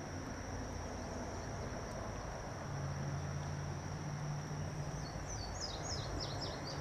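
Outdoor ambience: a steady high-pitched insect drone over a low hum, with a bird giving a quick series of falling chirps near the end.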